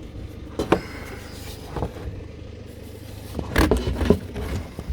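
Plastic engine cover of a BMW N55 engine being set back in place and pressed down: a few scattered knocks and clicks of plastic, the loudest ones close together near the end.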